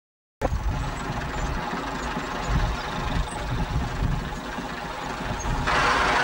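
Massey Ferguson tractor's engine idling with a steady rumble, getting louder and brighter near the end.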